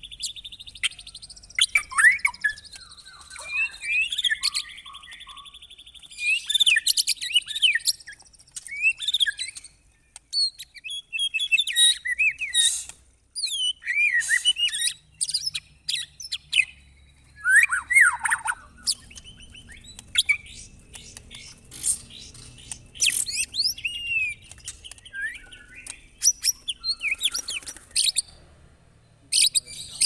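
White-rumped shama (murai batu) singing a long, varied song: clear gliding whistles mixed with fast trills and rapid strings of sharp notes, in bursts with short pauses between phrases.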